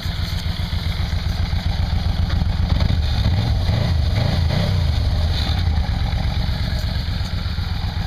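1989 Yamaha Venture Royale 1300's V4 engine running through its stock exhaust: idling, with the revs briefly raised and let fall back near the middle.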